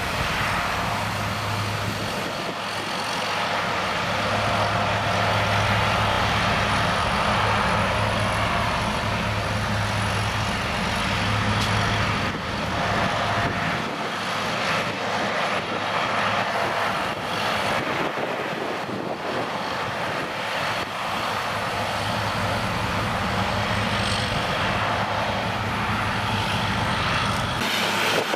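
Steady engine drone with a low hum, unbroken throughout.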